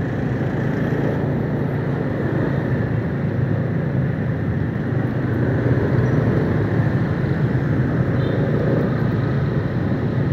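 Steady road noise from riding a motorbike through city traffic: the bike's engine running with wind and the surrounding traffic.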